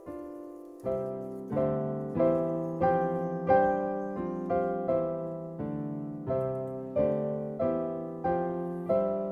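Background piano music: a slow melody of single notes, each struck and then fading, about one every two-thirds of a second.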